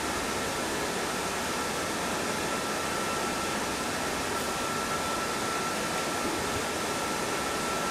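Steady fan noise, an even whoosh with a thin, steady high-pitched whine running through it.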